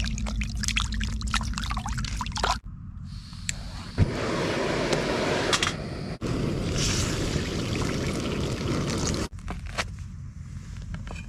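Water pouring and trickling, in several short stretches that change abruptly.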